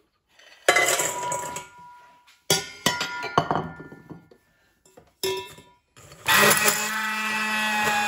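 Oreo cookie wafers and a plate clattering into a stainless steel mixing bowl, a few separate knocks with the bowl ringing after each. About six seconds in, a hand blender starts and runs steadily in the metal bowl, crushing the cookies.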